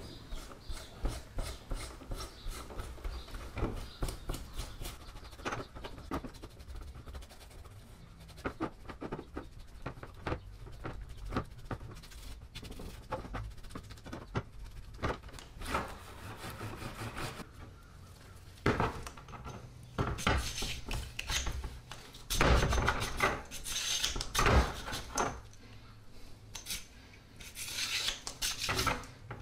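A hand brush scrubbing wet, rusty steel airgun parts in a plastic tub, in many quick back-and-forth strokes, with louder, harsher scrubbing in the second half.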